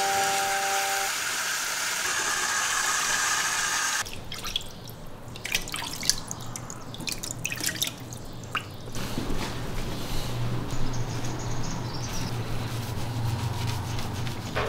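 Water dripping and splashing in a plastic bath tub as a wet Yorkshire terrier puppy is bathed. Short scattered drips and splashes come first, then a steadier wash of water with a low hum in the second half.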